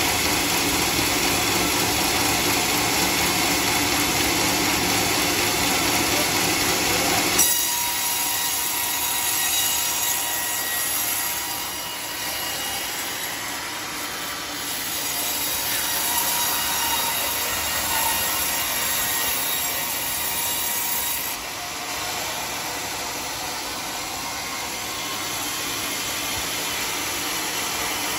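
Homemade band sawmill running and sawing through a large hollow teak log, a steady noisy sawing sound with a faint squeal. The sound drops abruptly about seven seconds in, just after a short sharp peak, and changes again about twenty-one seconds in.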